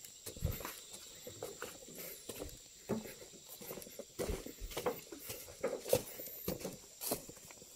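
Footsteps on a dirt track, with irregular knocks and clicks.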